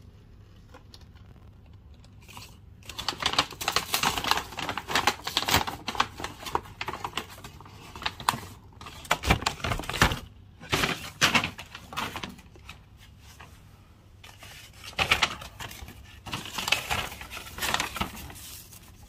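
Rustling and crinkling of a Starbucks paper takeaway bag being opened and unpacked, with quick clicks and taps of handling. It starts about three seconds in and comes in several bouts with short pauses.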